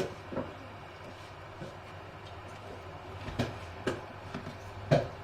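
Several sharp clicks and taps of small repair tools handled on a phone circuit board, the loudest near the end, over a steady low electrical hum.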